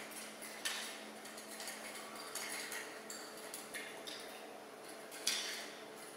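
Light clinks, taps and scraping of small objects being handled, with two sharper knocks, about a second in and near the end, over a steady low hum.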